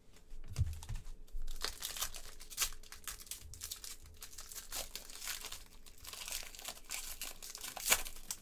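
Foil trading-card pack wrappers being torn open and crinkled by hand: a dense, continuous crackle, with one sharp crackle near the end.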